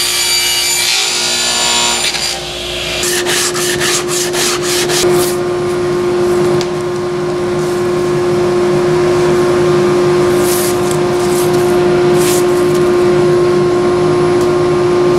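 Table saw cutting through an MDF panel for about the first two seconds, followed by a quick series of knocks as the panels are handled. A steady motor hum runs on under the rest.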